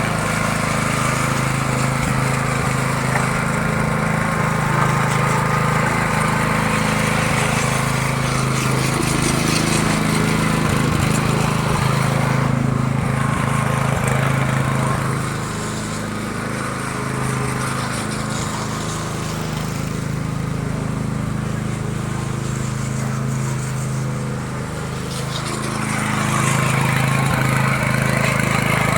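Small petrol engine of a power trowel ('concrete helicopter') running steadily. It eases off a little from about halfway through, then picks up again a few seconds before the end.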